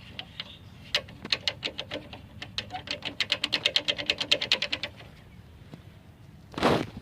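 A rapid series of sharp mechanical clicks that speeds up to about eight to ten a second and then stops, followed by a short burst of noise near the end.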